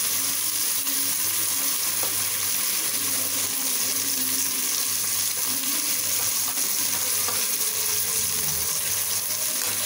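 Oil sizzling steadily in a pot of browned onions with mint and coriander leaves, a dollop of ginger-garlic paste just added on top.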